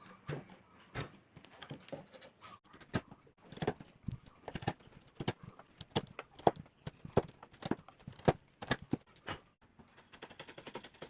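Hand-tool woodworking: a series of sharp wooden knocks and taps at uneven spacing, roughly one or two a second, a few striking harder past the middle.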